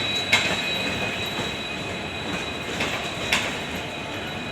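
Train rolling by with a steady high-pitched squeal from its wheels on the rails, over a rumble, and a few sharp clacks as the wheels cross rail joints.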